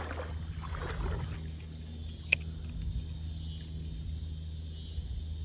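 Steady chirring of crickets or similar insects, with a single sharp click about two seconds in.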